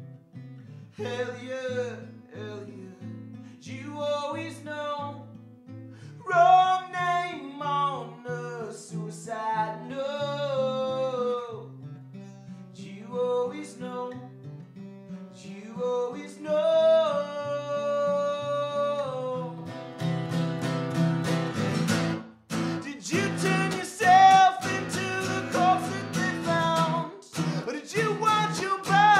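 A man singing while strumming an acoustic guitar. About twenty seconds in, the strumming becomes harder and denser under the singing.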